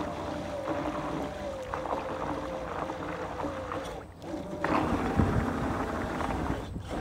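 Electric motor of a Bancroft LCM3 RC landing craft whining steadily under throttle. The whine cuts out briefly about four seconds in, then comes back at a slightly higher pitch.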